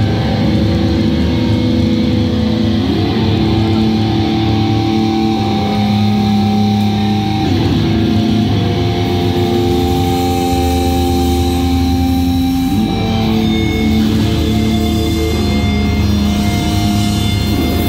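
Heavy metal band playing live: loud distorted guitar chords, each held for a couple of seconds before moving to the next.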